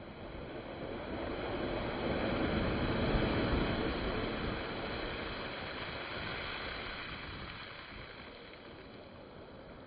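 Large sea waves surging and breaking at high tide: a rush of surf noise that builds over the first three seconds or so, then slowly dies away.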